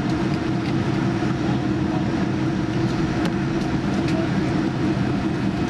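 Steady cabin noise of a Boeing 787-9 taxiing, heard from inside the cabin over the wing: its General Electric GEnx-1B engines running at low taxi power as an even drone, with a few faint clicks about halfway through.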